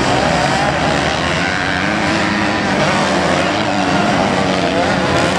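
Motocross bike engines revving hard around the track, their pitch rising and falling as the riders work the throttle and shift gears.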